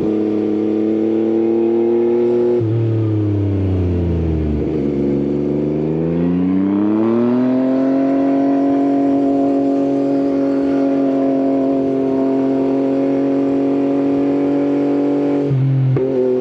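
Yamaha XSR900 three-cylinder engine through an Akrapovič exhaust, heard while riding. It rolls off with falling revs about three seconds in, then accelerates with rising revs and holds a steady cruise, with an abrupt change in engine note near the end.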